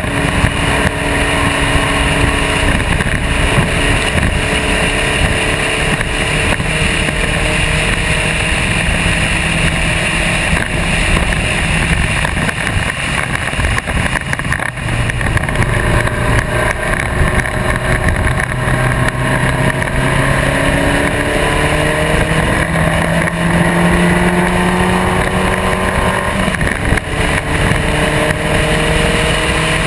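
Spec Racer Ford race car's engine pulling hard at speed, its pitch climbing as it accelerates, dipping around the middle and dropping at a gear change near the end before climbing again, over steady road and wind noise.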